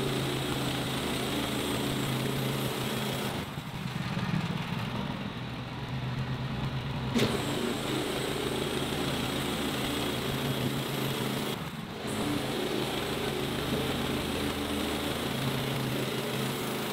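Woodland Mills HM130 Max portable band sawmill running steadily under load, its gas engine droning as the band blade cuts lengthwise through an old wooden railroad tie. The used blade is getting hard to push through the wood and leaves a rough, stringy cut.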